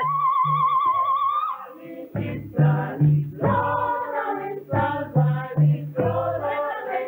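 A singer holds a long note with a wide vibrato, then a chorus of voices takes up a song in short phrases over a recurring low beat.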